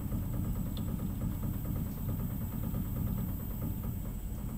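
Tormach PCNC 1100 CNC mill running a steady low hum with a fine, rapid ticking, as an axis is jogged slowly to bring the probe tip against the part.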